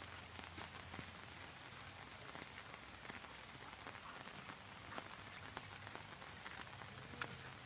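Dog gnawing and tearing at a coconut husk: faint, irregular crackling and crunching of the fibrous husk, with a sharper snap near the end.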